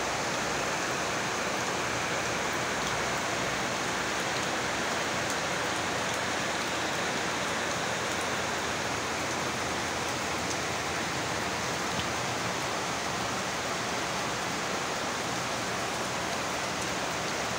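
Heavy monsoon downpour, rain falling in a steady, even hiss.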